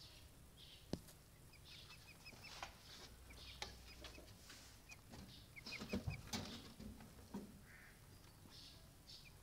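Brahma chickens clucking faintly, with runs of short high chirps and a busier, louder stretch of calls past the middle, and one sharp click about a second in.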